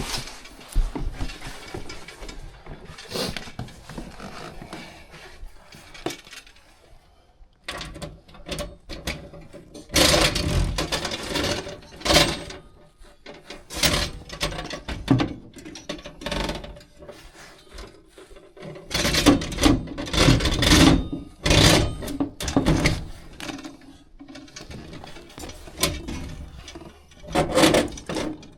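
Metal furnace parts being handled and worked on by hand: irregular scraping, rubbing and clattering in bursts of a second or two, loudest about ten seconds in and again near two-thirds of the way through.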